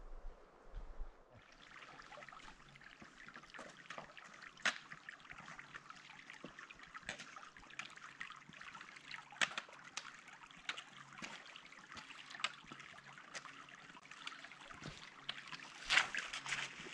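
A small stream trickling and splashing over rocks, starting suddenly about a second in, with scattered sharp clicks throughout.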